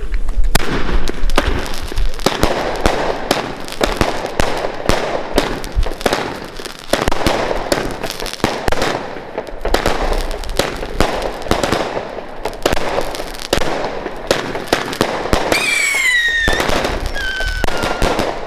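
Several Aquarius 25-shot consumer firework cakes firing at once: a dense, rapid stream of launch shots and bursting bangs. Near the end, two whistles fall in pitch over it.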